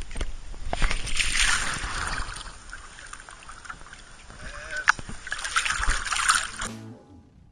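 Water splashing as a hooked golden dorado thrashes at the surface beside the boat, in two spells, one about a second in and another around five seconds in, dying away near the end.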